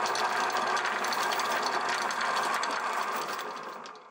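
A sailboat's inboard diesel engine running steadily with a fast mechanical clatter while the boat motors slowly, fading out near the end.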